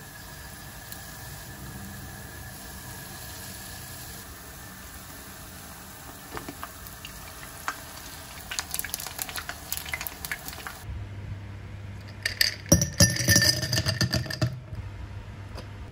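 Potato fritters sizzling in hot oil, with a utensil clicking against the pan now and then. About eleven seconds in the sound changes abruptly to a quick run of clinks on glass or ceramic.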